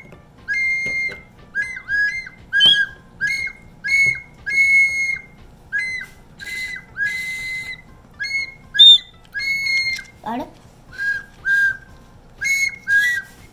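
A whistle built into a pen, blown in a rapid series of short, high toots that hop between two notes. A few notes are held longer, about four and seven seconds in.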